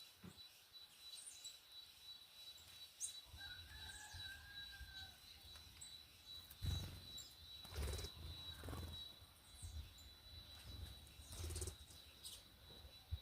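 Faint, scattered high bird chirps with a drawn-out whistled note about four seconds in, and three louder short rustles, like wing flutters, in the second half.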